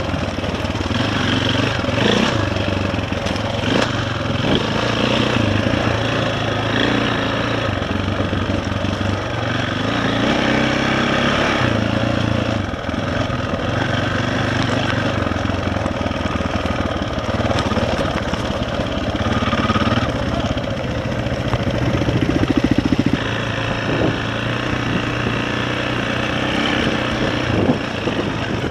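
KTM 525 single-cylinder four-stroke dirt bike engine running at low revs, its pitch rising and falling as the bike picks its way up a rocky track, with occasional knocks from the wheels and suspension over loose rock.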